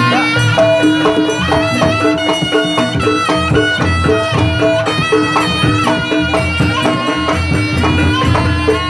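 Live Javanese jaranan ensemble music: a reed wind instrument, the slompret, plays an ornamented melody of held notes over a steady drone, drums and gongs.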